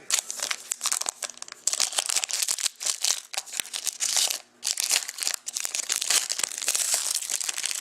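Plastic crinkling and rustling as trading cards and their pack wrapping are handled, a dense run of small crackles that stops briefly about four and a half seconds in.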